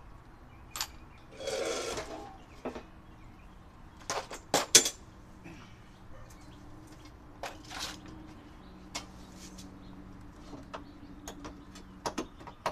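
Metal hand tools clinking and clattering as a hand rummages through a plastic toolbox: a string of sharp knocks, the loudest about five seconds in, with a short scraping rustle near two seconds.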